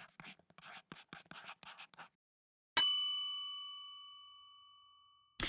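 Title-animation sound effects: a quick run of short scratchy pen-scribbling strokes, then about two-and-a-half seconds in a single bright bell-like ding that rings and fades out over about two seconds.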